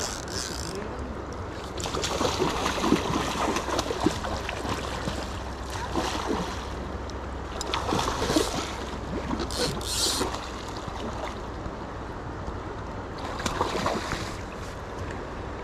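River water rushing steadily past the bank, with a series of splashes at the surface every few seconds. The loudest splashes come about 8 seconds in and again near the end.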